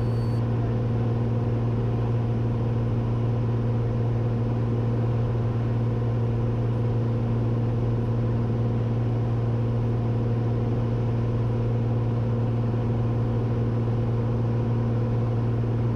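Cessna 182's piston engine and propeller droning steadily in level cruise, a constant low hum with no change in pitch.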